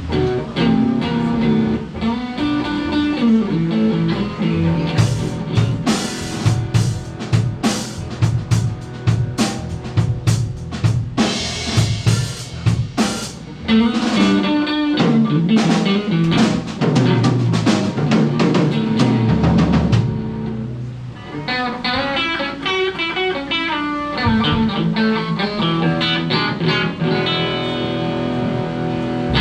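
Live blues band playing instrumentally: electric guitar over a drum kit and bass, with no singing.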